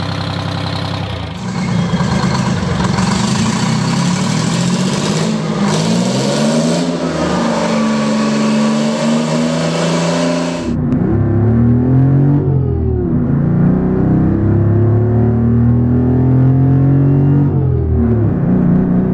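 Three-cylinder Detroit Diesel two-stroke diesel engines running. One runs steadily, then is revved. After a sudden change about ten seconds in, another is revved up and back down twice.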